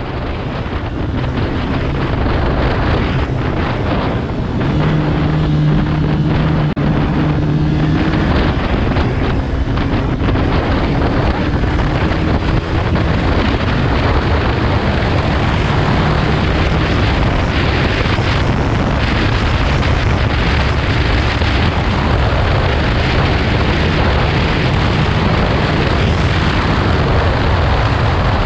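KTM Duke 125's single-cylinder engine pulling as the motorcycle accelerates to about 100 km/h, under heavy wind rush on the camera microphone. The sound fades in over the first second or two, and a little past a third of the way in the engine note climbs.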